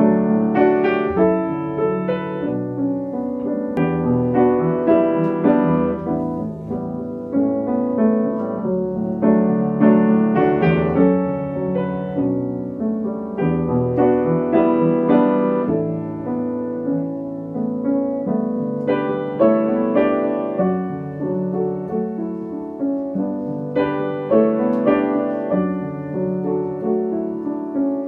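Solo piano music playing slow chords and melody.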